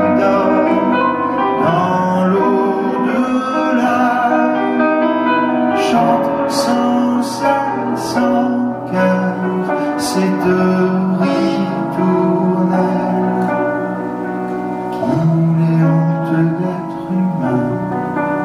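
A man singing a slow song live, accompanied by marimba played with four mallets.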